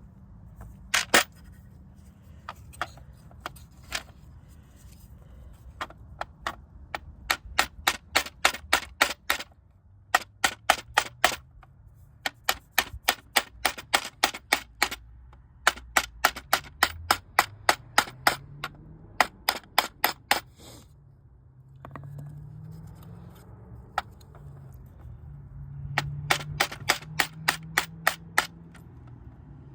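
Hand ratchet wrench clicking in quick runs of about four to five clicks a second, stopping and starting every few seconds as bolts are worked during the valve cover reassembly.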